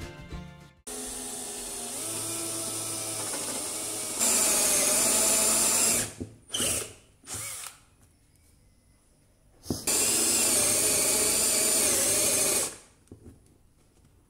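Cordless drill boring a wide hole into a block of wood, its motor whining as it cuts. It runs in long stretches, loudest for about two seconds near the middle and about three seconds later on, with a few short bursts and pauses between them.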